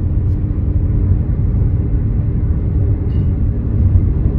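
Car driving at steady road speed: a constant low rumble of engine and tyres on the road surface.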